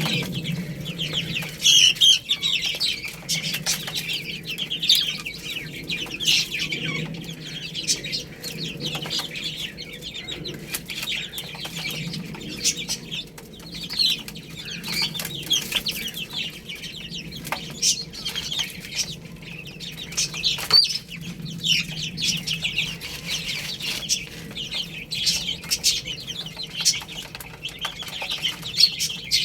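Baby chicks peeping constantly, a dense chorus of short, high chirps overlapping one another, with scattered sharp ticks among them.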